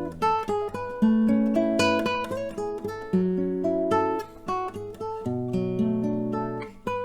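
Fabio KM3915 WH nylon-string classical guitar with a linden body, played as a run of chords. Plucked notes ring over held bass notes, and the chord changes about once a second.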